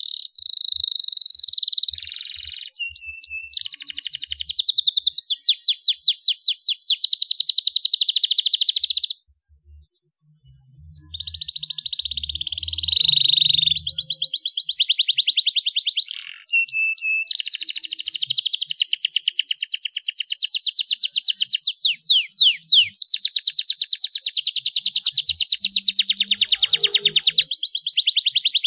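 Domestic canary singing a long, high-pitched song of fast trills and rolling runs, with short breaks about nine seconds in and again about sixteen seconds in.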